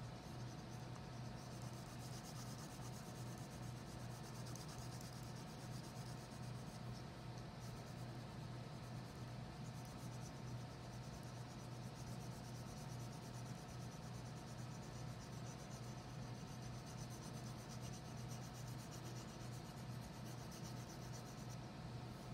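Wax crayon scribbling back and forth on paper, a faint continuous scratchy rubbing, over a low steady hum.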